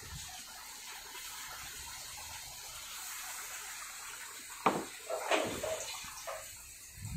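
Masala gravy sizzling in an iron kadai over a gas burner, a steady hiss. From about two-thirds of the way in come a few sharp knocks and scrapes as paste is scraped from a cup into the pan and a metal ladle stirs it.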